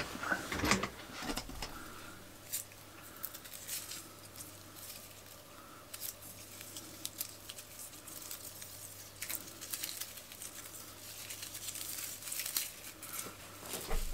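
Loose, tangled cassette tape and its plastic spool being handled: scattered light rustles, crinkles and small clicks, over a faint steady low hum.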